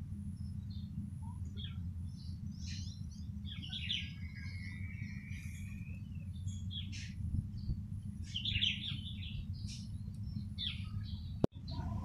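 Eurasian tree sparrows chirping: many short, scattered chirps, with one longer drawn-out call about four seconds in, over a steady low background rumble. A single sharp click with a brief drop-out comes just before the end.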